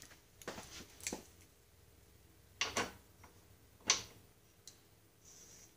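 Hand grease gun being pumped into a newly installed grease fitting on a shift lever shaft: a few sharp clicks and clacks, the loudest about four seconds in.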